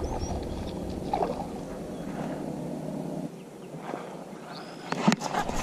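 Baitcasting reel being cranked steadily while fighting a hooked bass, a continuous mechanical whirr that eases off about three seconds in. There is a sharp click near the end.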